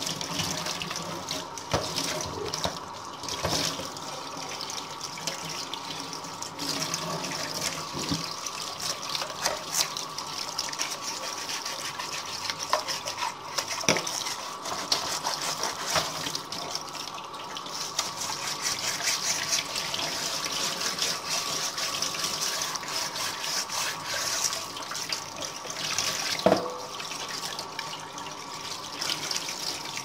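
Tap water running into a stainless steel sink while a vacuum cleaner floor head is rinsed and scrubbed by hand, with scattered knocks as the parts are handled against the sink and one louder knock near the end.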